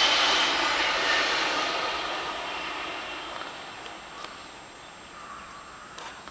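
A train passing out of sight, a steady rushing noise with faint high tones that fades gradually as it moves away.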